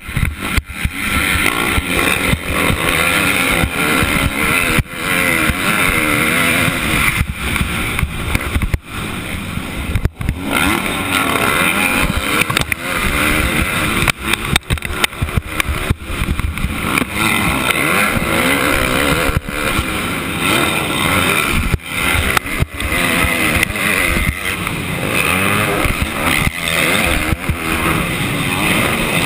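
Motocross dirt bike engine heard through a helmet-mounted camera, revving hard and wavering in pitch as the throttle is worked. The sound dips sharply and briefly several times as the throttle is chopped.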